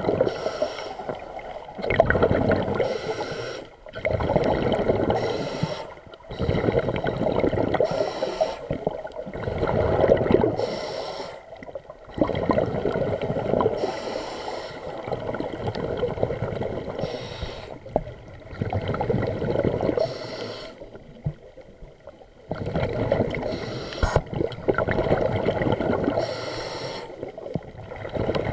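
A diver breathing underwater through a scuba regulator, in a steady cycle about every three seconds: a short hiss on each inhalation, then a longer gurgling rush of exhaled bubbles.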